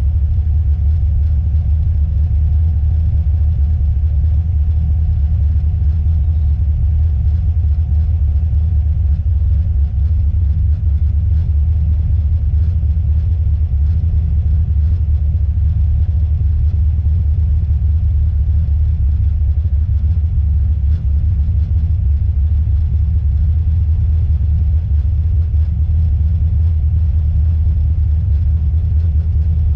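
Car driving: a steady low rumble of engine and road noise with no clear changes.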